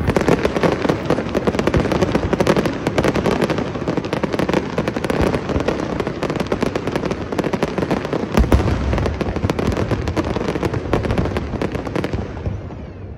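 Aerial fireworks bursting: a dense, continuous crackle of many sharp bangs, with one heavier low boom about two-thirds of the way through. The crackling thins and fades near the end.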